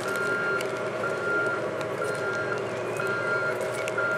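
A heavy machine's reversing alarm beeping about once a second, each beep about half a second long, over the steady running of its engine.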